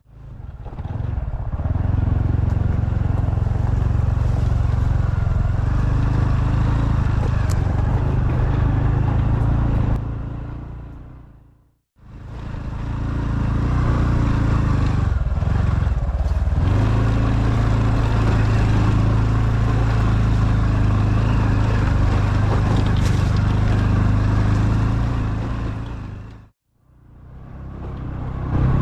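Honda Super Cub's single-cylinder four-stroke engine running steadily while riding, with road and wind noise. About halfway through the engine note sags briefly and then picks up again as the throttle is reopened. The sound fades out and back in twice.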